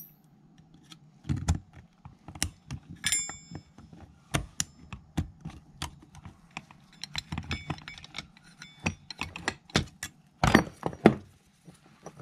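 Irregular metal clicks, clinks and knocks as snap ring pliers and a bronze screwdriver work a steel snap ring down into its groove inside a transmission sun gear drum. A few ringing metallic clinks come about 3 s in, and the loudest knocks come near the end.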